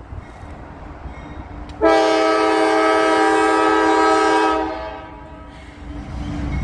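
Locomotive air horn sounding one long blast of about three seconds, starting about two seconds in, over the low rumble of a train, which grows louder near the end.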